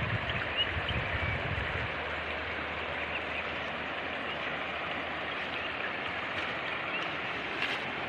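Shallow mountain river running over rocks and gravel: a steady rush of water. A low rumble on the microphone fades out about two seconds in, and a few faint short high chirps sound now and then.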